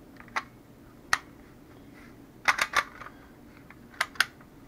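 Umarex Heckler & Koch USP spring airsoft pistol being handled, its plastic slide and trigger parts giving sharp clicks and clacks: single clicks early on, a quick run of three around the middle, and two more near the end.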